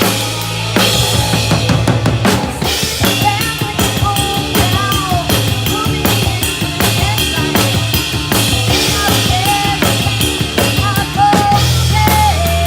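A drum kit played in steady time, with bass drum, snare and rimshots, over music with a sustained bass line and a melody that bends in pitch.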